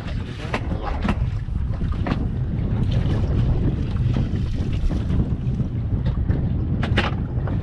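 Wind buffeting the microphone in a low, steady rumble, with a few sharp knocks, the loudest about seven seconds in.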